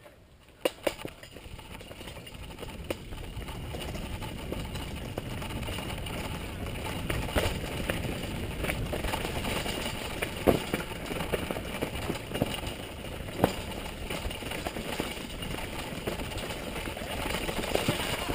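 Mountain bike riding fast down a rough dirt trail: tyres on dirt and gravel, with the bike rattling and knocking sharply over bumps, and wind rushing over the microphone. The noise builds over the first few seconds as the bike picks up speed.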